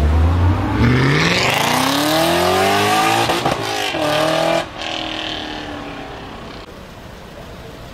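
BMW M5 E39's 4.9-litre V8 through an Eisenmann race exhaust, accelerating hard with the engine note climbing for about three seconds. There is a brief break about three and a half seconds in, then a second climb. The note falls away sharply near the five-second mark and fades as the car drives off.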